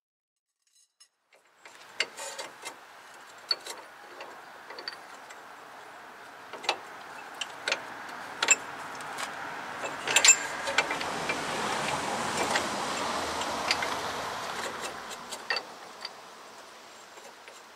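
Scattered metallic clicks and knocks of tools and press parts handled against a truck's front suspension. A vehicle passing in the street swells and fades in the middle.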